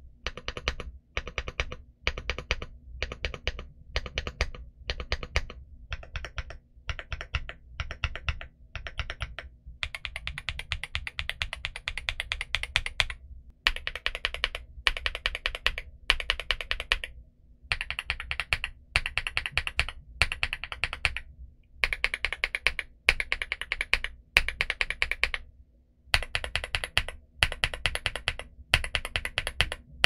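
Typing on a Womier SK75 mechanical keyboard fitted with Womier POM linear switches and DS PBT Cherry-profile keycaps. Rapid keystrokes come in runs broken by brief pauses; the runs are short in the first third and longer after.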